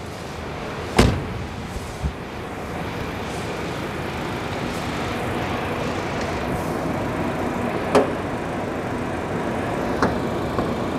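Honda Freed's 1.5-litre four-cylinder engine idling with the air conditioning on, a steady hum. A car door shuts with a sharp thud about a second in, followed by a lighter knock, and there are a couple of light clicks later on as the bonnet is worked open.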